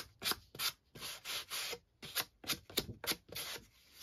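Short scratchy rubbing strokes on the freshly cut edge of a piece of patterned paper, about a dozen in an uneven rhythm, one of them longer about a second in, as a rough edge is tidied up.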